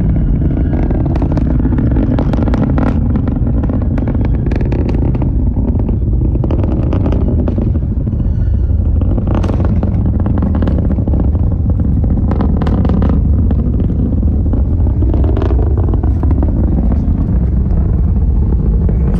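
Distant Falcon 9 rocket launch: the first stage's nine Merlin engines make a loud, continuous deep rumble, broken by rapid irregular crackles.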